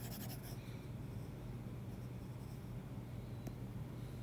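Stylus tip faintly rubbing and tapping on a tablet's glass screen while erasing, with a few light taps, over a steady low hum.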